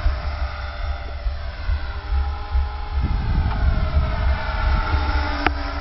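HK-450 electric RC helicopter in flight: a whine from its motor and rotor head that slides slowly down and back up in pitch as it manoeuvres, over a steady low rumble. A short click sounds near the end.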